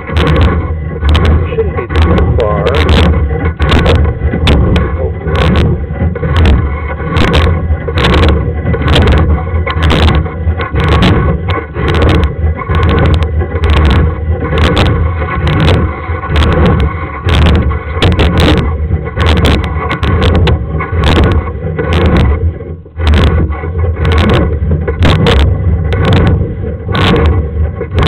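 Sewer inspection camera's push cable being fed into the drain line: frequent irregular clacks and scrapes of the rod and reel, one or two a second, over a steady low rumble.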